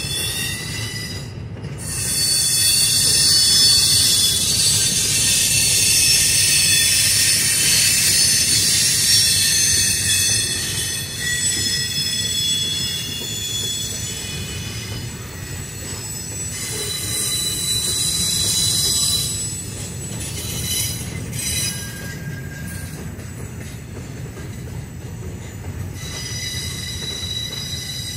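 Double-stack intermodal freight cars rolling past with steel wheels squealing in several high pitches over a low rumble of the train. The squeal is loudest from about two seconds in until about eleven, eases off, and swells again briefly past the middle.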